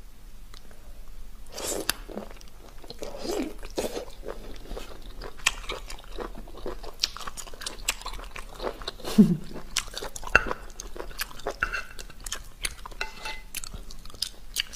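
Many short wet clicks and squelches of a whole boiled cuttlefish, slick with its ink, being torn apart by hand and chewed.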